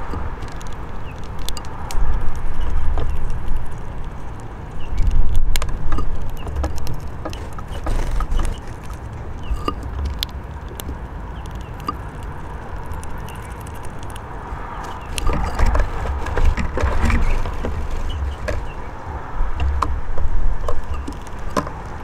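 Wind buffeting the microphone in irregular gusts over a steady outdoor background rumble, with scattered light clicks and taps.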